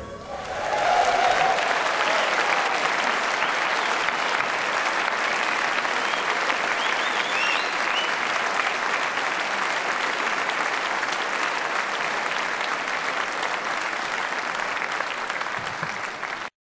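Audience applauding steadily, with a few brief cheers rising above the clapping about seven seconds in; the applause cuts off suddenly near the end.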